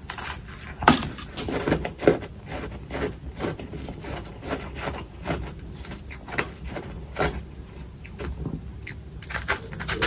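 Close-up crunching and chewing of packed humidifier freezer frost being bitten off a ball and eaten: irregular crisp crunches, the loudest about a second in.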